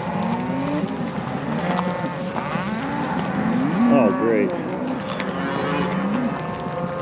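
A herd of beef cattle mooing as they are driven along a road: many overlapping calls from several animals at once, the loudest about four seconds in.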